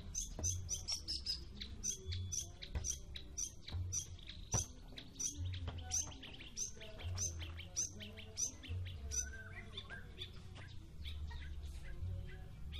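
White-rumped shama (murai batu) singing: a run of short, high, sharp notes repeated about twice a second, then breaking into more varied, softer phrases in the second half.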